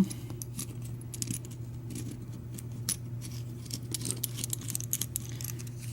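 Small metallic clicks and jingling as the threaded retaining cap is turned onto the back of a Schlage deadbolt cylinder plug with a cap tool, its spring-loaded detent clicking from notch to notch, over a steady low hum.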